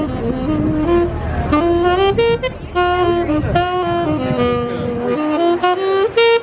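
Solo saxophone playing a slow melody of held notes, some bending into the next. Low traffic rumble sits underneath through the first half.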